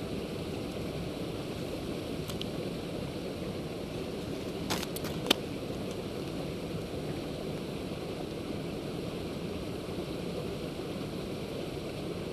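Steady wind noise buffeting the microphone, with a short cluster of sharp clicks about five seconds in, the last click the loudest.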